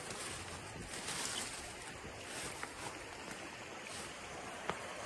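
Shallow river running over rocks: a steady rushing of water, with a single sharp click near the end.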